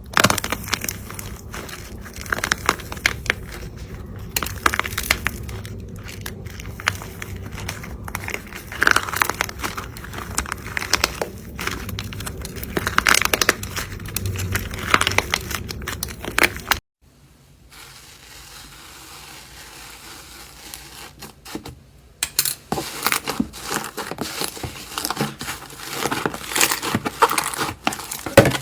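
Slime being squeezed and pressed by hand, giving dense crackling, crinkling squishes. The sound cuts off abruptly about two-thirds of the way through, stays quieter for a few seconds, then dense crackling resumes.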